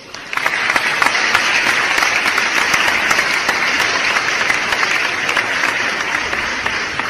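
Applause sound effect: a crowd clapping, coming in quickly at the start and slowly easing off towards the end.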